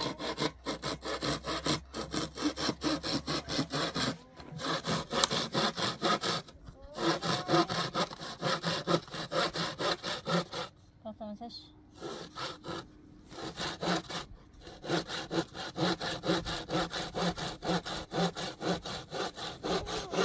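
Hand saw cutting through wood in quick, even back-and-forth strokes, about three to four a second, stopping briefly a few times.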